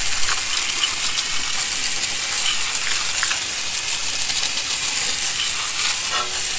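Garden hose spray nozzle jetting water onto a car's alloy wheel and tyre: a steady hiss of spray with water splattering off the wheel, rinsing off the wheel cleaner.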